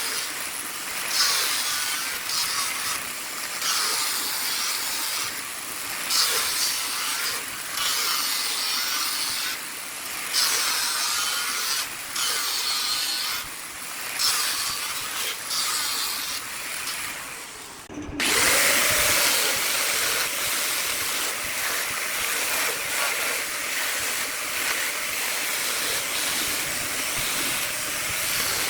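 Woodworking tools on wood: repeated scraping strokes about every two seconds. After a sudden break about two-thirds of the way in, they give way to a steady hiss.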